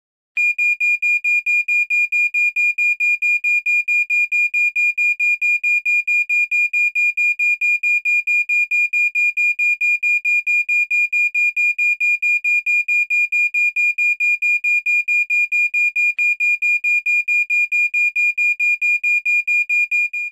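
Smoke detector alarm sounding: a shrill, high-pitched beep pulsing rapidly and evenly, about three to four beeps a second, starting about half a second in.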